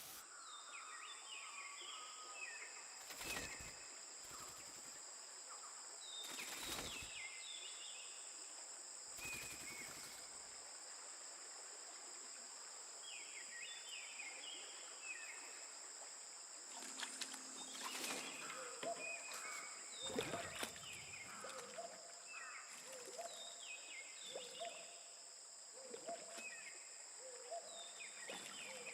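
Faint natural ambience: birds calling in short runs of stepped, falling notes over a steady high-pitched insect drone, with a few brief rustling noises.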